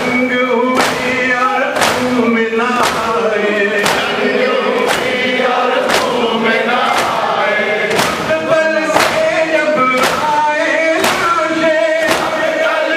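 A man sings a nauha lament through a microphone while a crowd of men chant along, over loud chest-beating (matam) in unison, about one beat a second.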